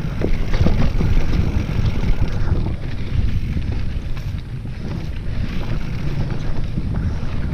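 Mountain bike riding a dirt singletrack: wind buffeting the camera microphone in a steady low rumble, with tyres rolling over dirt and rocks and the bike rattling in frequent short knocks and clicks.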